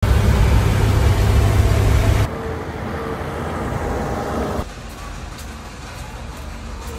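1937 Chevrolet truck's straight-six engine running, loud and deep as heard from inside the cab. About two seconds in it drops suddenly to a quieter engine sound with a faint hum, and a little past four and a half seconds to a low, even room hum.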